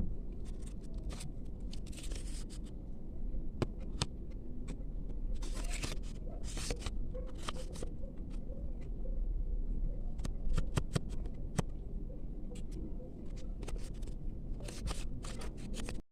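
Handling of small packaging and miniature books: rustles, scrapes and sharp clicks, scattered irregularly over a low steady hum.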